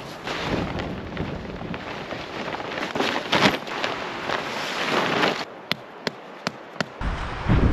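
Gusty high wind buffeting the microphone, with an uneven crackling noise that swells and fades. Near the end it drops for a moment to a few sharp clicks, then another loud gust hits.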